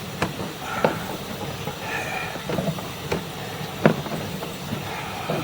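Sewer inspection camera's push cable being pulled back out of the line, a steady low rumble with a few short knocks as the cable and reel move.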